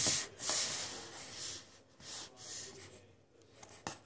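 Fingers squishing and poking a mound of soft glitter slime, giving sticky squelching noises. They are loudest in the first second and a half, with a sharp click near the end.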